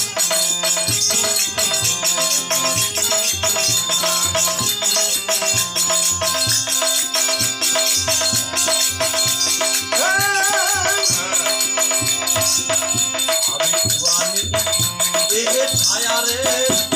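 Instrumental passage of a Gujarati devotional bhajan: held melodic notes over a stepping bass line, with fast rattling percussion, and a brief wavering high melodic phrase about ten seconds in.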